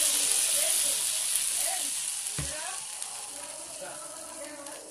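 Potato and soybean curry sizzling in a hot metal pan, with a steady hiss that dies down as the water just added to the fried masala heats. A metal ladle stirs the gravy, and there is a soft low bump about halfway.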